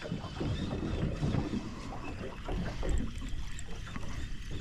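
Wind buffeting the microphone and water lapping around a small boat, a low steady rumble with faint irregular knocks.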